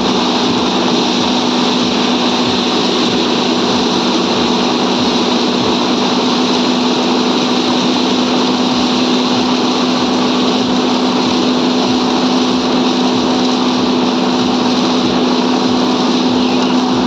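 Small engine running steadily at one constant speed, a loud even drone with a strong low hum.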